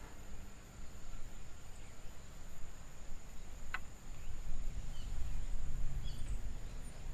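Outdoor field ambience: a steady high-pitched insect drone over a low, uneven rumble, with a single sharp click about three and a half seconds in and a few faint bird chirps.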